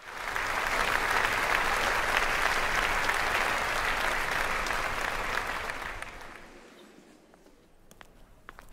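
Audience applauding, then dying away after about six seconds; a few faint clicks follow near the end.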